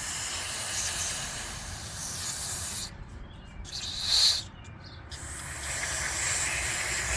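Aerosol brake cleaner spraying onto disassembled motorcycle carburetors, cleaning them, in hissing spurts: a spray of about three seconds, a short, loudest burst about four seconds in, then a steady spray from about five seconds on.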